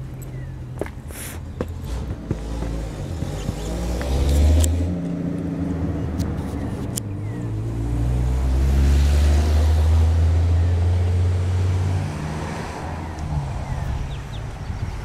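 Car driving past, its engine and tyre noise swelling briefly about four seconds in, then building to a longer peak just past the middle before fading.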